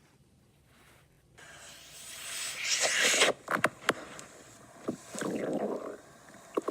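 Stomach growling heard close up: a hissing, gurgling swell that builds from about a second and a half in, a quick run of wet clicks, then a lower gurgle about five seconds in.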